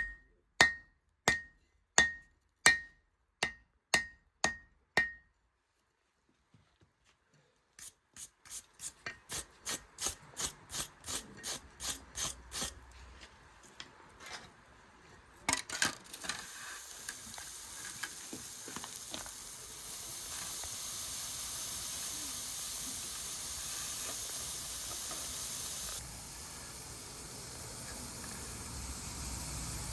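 Hand hammer forging steel on an anvil: evenly spaced blows about one and a half a second, each with a ringing note, then a short pause and a run of quicker, lighter blows. From about halfway through, a steady hiss takes over.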